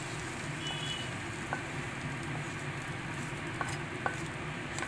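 A wooden spatula pushing fried brinjal pieces out of a wok onto a plate: a few soft taps and clicks of the spatula against the pan, each with a brief faint ring, over a steady low hum.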